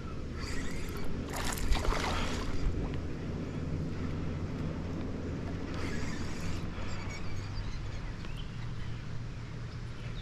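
Water splashing and sloshing three times, over a steady low hum.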